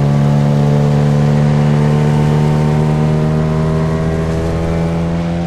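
Outboard motor running under way, its steady drone rising slowly in pitch as the boat picks up speed.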